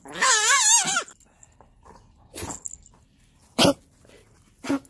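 A dog gives one wavering whine lasting just under a second, followed by three short, sharp sneeze-like sounds about a second apart.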